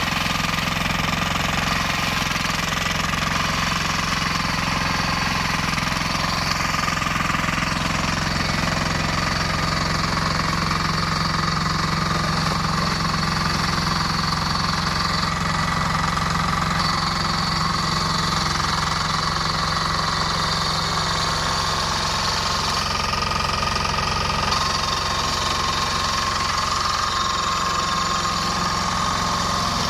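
The 18 hp diesel engine of a flail mower running steadily at a constant speed.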